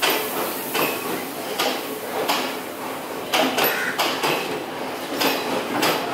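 Passenger train carriages rolling slowly past, their steel wheels clacking over the rail joints: sharp metallic clacks about once a second, some in quick pairs.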